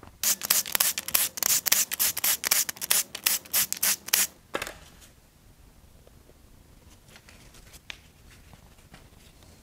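Red cordless power tool working the bolts out of a Ford 5.0 Coyote V8's valve cover: a rapid, rattling run of clicks for about four seconds that stops abruptly. This is followed by a few faint handling clicks as the cover is worked loose.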